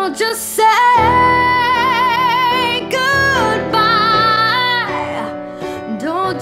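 Music: a female vocalist sings long held notes with vibrato over a soft instrumental backing in a slow pop ballad.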